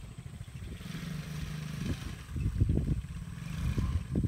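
Small kids' four-wheeler (ATV) engine running as it is ridden across a lawn, heard faintly, with irregular low thumps and rumbles that are louder than the engine.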